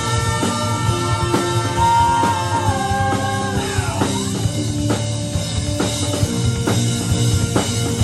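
Live rock band playing: drum kit hitting about once a second over a steady bass, with a long held high note that slides down about halfway through.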